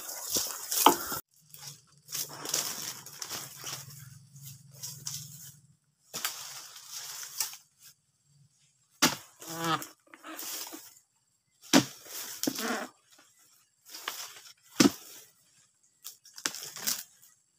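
Oil palm harvesting with a long pole sickle: the hooked blade scrapes and saws at the palm's frond stalks and fruit-bunch stalk in repeated rasping strokes. From about nine seconds in there are sharp cracks a little under three seconds apart, one with a short creak as the stalk gives.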